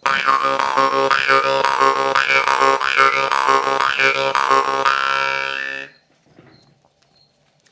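Dubrovsky khomus jaw harp in C#2 playing a steady low drone, its overtones swept up and down about once a second in howl-like, wolf-sound wails. The playing stops about six seconds in.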